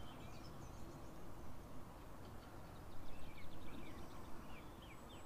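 Small birds calling outside: scattered short chirps, with a quick run of falling notes about three seconds in, over a faint steady outdoor hiss.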